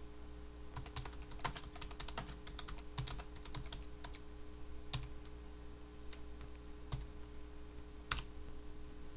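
Typing on a computer keyboard: irregular runs of quick key clicks, with one louder keystroke about eight seconds in.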